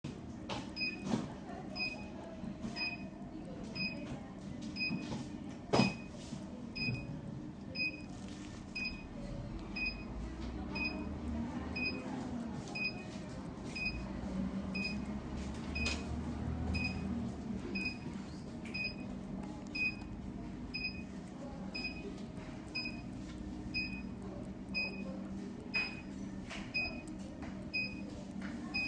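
Spider vein removal machine beeping steadily, a short high beep about every three-quarters of a second, as it pulses through the needle probe held on a thread vein.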